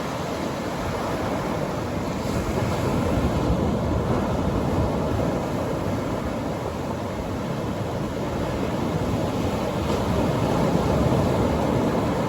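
Atlantic Ocean surf breaking on a beach: a steady wash of waves that swells twice, with some wind on the microphone.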